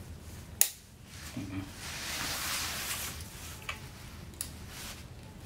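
Handling noise from play-yard parts: a sharp click, then a couple of seconds of rustling and sliding, with a few small ticks, as a tube is worked into the end of the nylon-covered frame.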